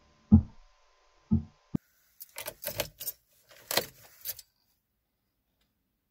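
Two dull thumps, then a run of quick metallic clinks for about two seconds: a bunch of car keys jangling as the key is put into the ignition and turned on.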